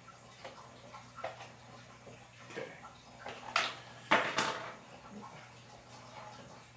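Plastic clicks and rattling as the body shell of a Feiyue FY-10 RC truck is handled and lifted off its chassis, with two louder sharp clatters about three and a half and four seconds in.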